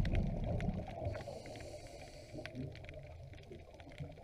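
Muffled underwater sound picked up by a diver's camera: a low rumbling, loudest at the start and easing off, with scattered faint clicks.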